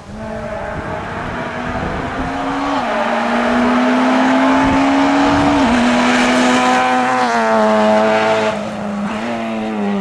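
F2000-class rally car at full throttle, coming closer and getting louder. Its engine note climbs and steps down with gear changes, then falls in steps as it goes past.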